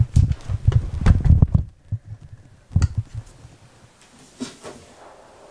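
Irregular low thumps and rumbling of a handheld camera being carried and handled, most of them in the first second and a half, with one more thump a little before three seconds as it is set down on the floor.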